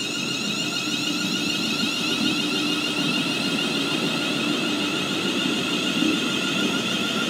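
Siemens Class 350 Desiro electric multiple unit pulling out of the station: a steady high whine from its traction equipment over the rumble of the wheels.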